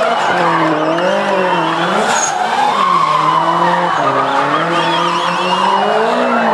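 A car engine revving up and down over and over as the car spins donuts, its tyres spinning and squealing with a high, wavering squeal.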